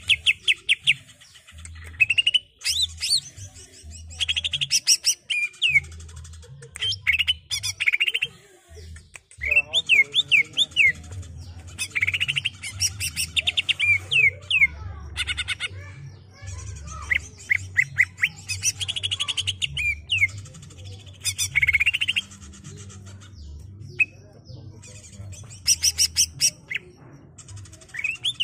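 Male cucak ijo (green leafbird) singing in long, continuous phrases. Rapid trills of fast repeated notes alternate with sharp sweeping whistles and chirps, broken by brief pauses.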